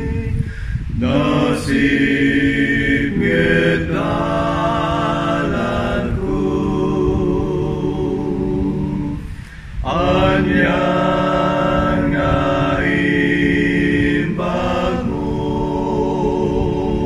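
One man's voice, multitracked into several harmony parts, singing an Ilocano gospel song a cappella in long held chords. There is a short break between phrases about halfway through.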